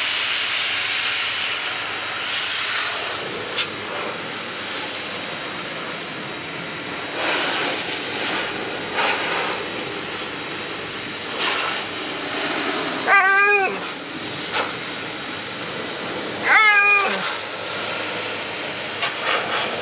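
Alaskan malamute puppy giving two short, wavering whining calls a few seconds apart in the second half, over a steady hiss.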